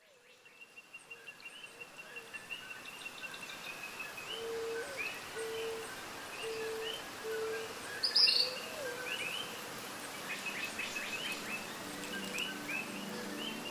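Birds chirping and calling, fading in from silence: many short repeated chirps, a run of four low steady notes, and a sharp louder call about eight seconds in. Music comes in near the end.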